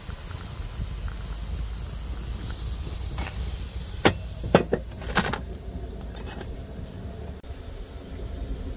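Hot water pouring from an enamel kettle into a glass teapot, a steady hiss that fades over the first few seconds. About four to five seconds in come several sharp clinks and knocks.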